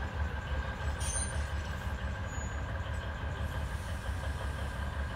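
Diesel locomotive engine idling at a standstill: a steady low rumble with a faint steady whine over it.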